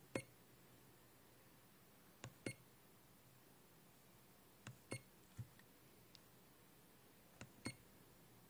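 ZOYI ZT-DQ01 handheld LCR meter keypad: four presses of a function button, each a small click followed by a short electronic beep, about every two and a half seconds, as the meter cycles its secondary measurement readout.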